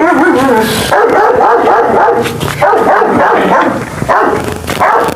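Guard dogs barking loudly and rapidly, the barks following close on one another with hardly a pause.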